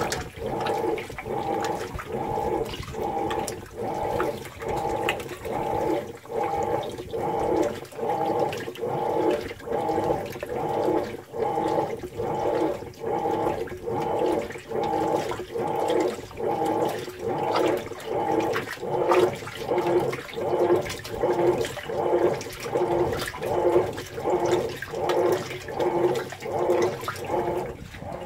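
Whirlpool Cabrio top-load washer agitating a deep-water load: the wash plate swishes the clothes back and forth, and the water sloshes in a regular rhythm with a hum that pulses with each stroke. The sloshing comes through the open lid.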